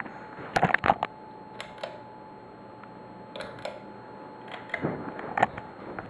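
Halsey 52-inch ceiling fan running with a steady low hum, under clusters of sharp clicks and knocks from the camera being handled, about half a second in, near the middle and again about five seconds in.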